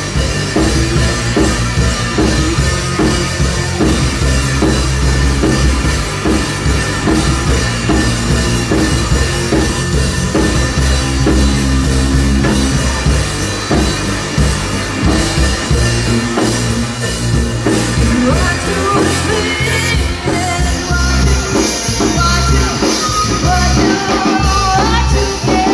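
A rock band playing live and loud: electric guitar, electric bass and a Yamaha drum kit together in a driving rhythm.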